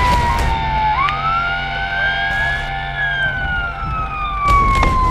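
Police siren on a slow wail: the tone falls, turns and rises about a second in, peaks about three seconds in, then falls again. A few short sharp knocks sound over it, two of them near the end.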